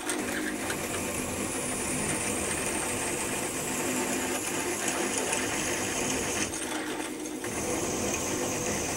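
Milling machine spindle running steadily at about 400 RPM while a 10 mm chucking reamer is fed gently through a drilled hole, with a faint high whine that slowly falls in pitch.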